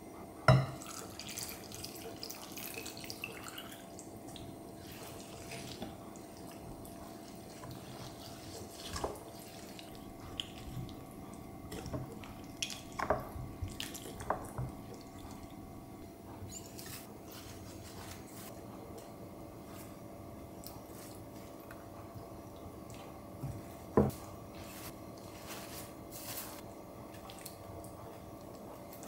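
Seasoning liquid poured in a thin stream into a glass bowl, then a metal spoon stirring and scooping the sauce, with occasional sharp clinks of spoon on glass; the loudest clinks come about half a second in and near 24 seconds.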